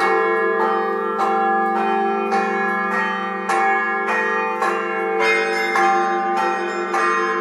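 Bells ringing in a repeating peal, a fresh strike a little under twice a second over the sustained hum of lower bells.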